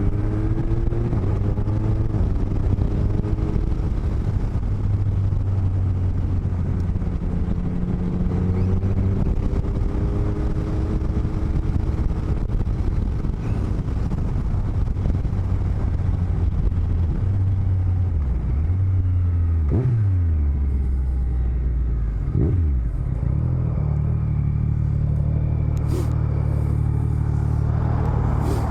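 Motorcycle engine and wind noise heard through microphones in the cheek lining of a helmet while riding. The engine holds a steady note, drops in pitch twice about twenty seconds in, then climbs and holds steady at a higher note.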